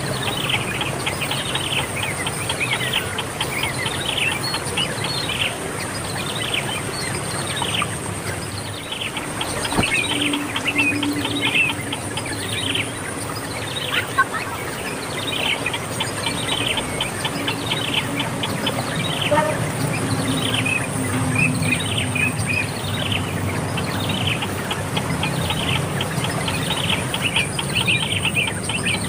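Birds chirping: short downward-sliding chirps repeated about once a second. A steady high-pitched whine, insect-like, comes and goes behind them.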